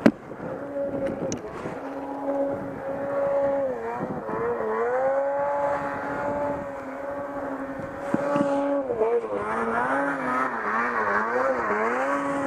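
Snowmobile engine running hard in deep powder, its pitch steady at first, then rising and falling quickly from about nine seconds in as the throttle is worked. A sharp knock right at the start.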